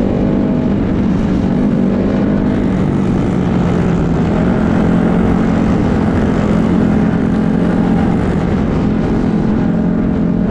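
Dirt bike engine running at a steady cruising speed, recorded from on the moving bike, one low even drone that holds the same pitch throughout.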